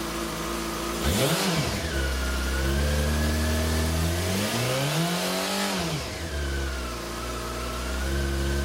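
2006 Yamaha R6S's 600 cc inline-four sport-bike engine, breathing through its stock tailpipe, idling and revved twice: a quick blip about a second in, then a longer rev about four seconds in, each rising and dropping back to idle.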